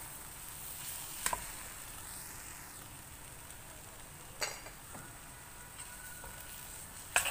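A metal spoon stirring and scraping a thick moong dal and pea filling in a steel kadai over a soft, steady sizzle, with three sharp clinks of the spoon against the pan.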